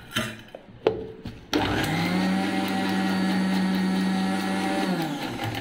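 A few knocks, then an electric mixer-grinder's motor starts about a second and a half in. It speeds up to a steady whine as it blends eggs and oil into mayonnaise, and winds down shortly before the end.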